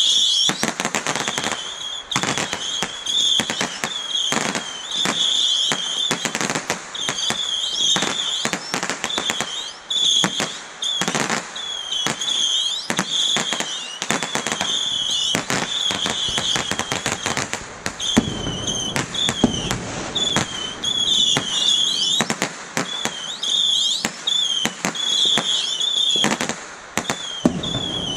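Aerial fireworks finale: many sharp bangs and crackles in rapid succession, with high wavering whistles running through most of it.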